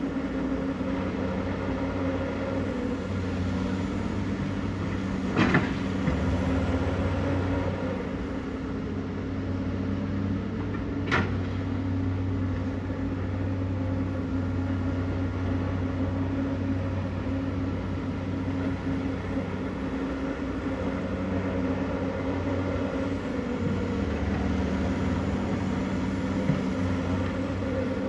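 Komatsu 210LC excavator's diesel engine running steadily, its pitch and level swelling and easing as it works under hydraulic load. Two sharp knocks sound, about five seconds in and again about eleven seconds in.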